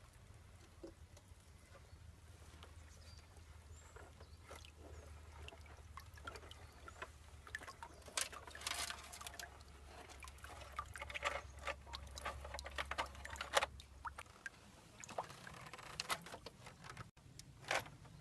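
Scattered light clicks, rattles and scrapes of small objects being handled, over a low hum that cuts off about fourteen seconds in.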